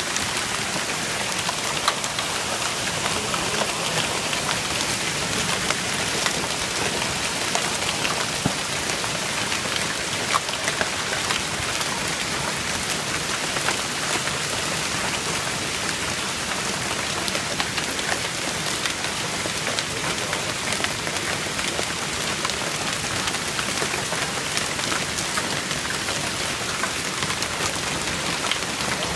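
Small ice pellets falling hard on a wooden deck and woodland: a dense, steady patter with many sharper ticks from single hits.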